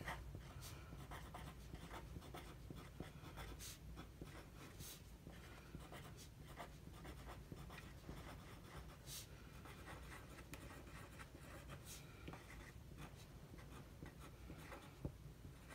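Faint scratching of a pen writing on paper, in short irregular strokes and small ticks as figures and words are written out.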